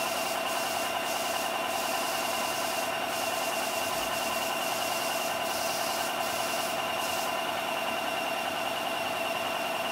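Tamiya Spray-Work Basic air compressor running with a steady hum and a high whine. Over it, the airbrush's hiss of air comes and goes as the trigger is worked.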